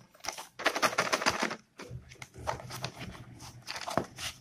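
Cardboard parcel wrapping and packing tape rustling and crinkling as they are handled and a pencil box is worked out of them. A burst of crackling comes about half a second in and lasts about a second. Softer rustling follows, with one sharper click near the end.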